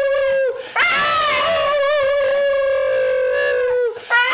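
Dog howling in long held notes, its 'singing'. One howl falls away about half a second in, a second, slightly wavering note holds for about three seconds and drops off near the end, and a third begins right after.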